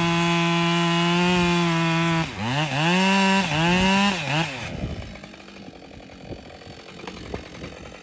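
Husqvarna 572 XP two-stroke chainsaw held at full throttle cutting through almond wood for about two seconds, then revved up and down three times before the throttle is released and the engine sound falls away.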